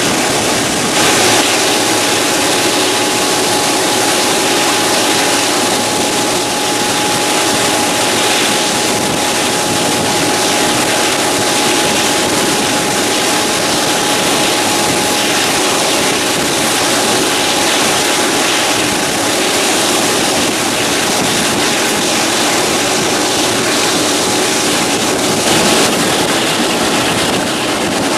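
Steam-hauled passenger train running at speed, heard from an open carriage window: a loud, steady rush of wind and wheel noise, with a thin steady high tone running through most of it.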